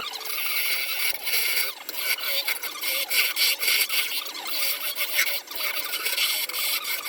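Baltic birch plywood bowl turning on a WEN LA3421 mini lathe: uneven, scratchy scraping against the spinning wood, with the lathe's faint motor hum beneath.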